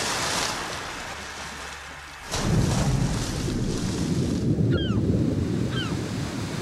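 Splashing, rushing water of a great white shark breaching, fading away, then a sudden deep surge of churning water about two seconds in that keeps on, with two faint short high chirps later.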